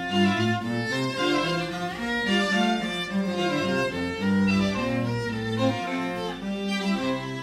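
Classical string ensemble music, violin and cello parts playing sustained, overlapping notes.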